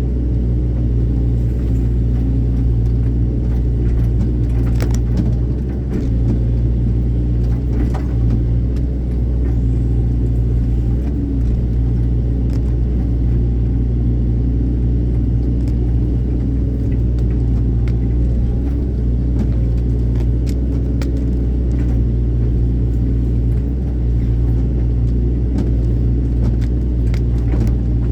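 Hydraulic excavator's diesel engine running steadily at a constant pitch, with a few sharp clicks and knocks over it.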